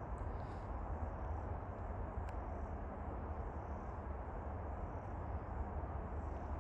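Steady outdoor background noise, mostly a low rumble, with one faint sharp click about two seconds in.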